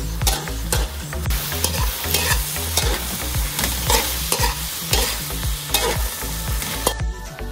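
Metal spatula scraping and knocking against a wok about twice a second while chop suey ingredients sizzle in hot oil. The sizzle grows louder about a second in, then cuts off shortly before the end.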